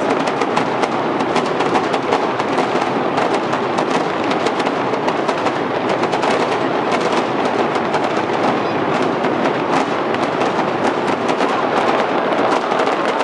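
Fireworks going off in a dense, continuous barrage: rapid, overlapping cracks and pops with no pause.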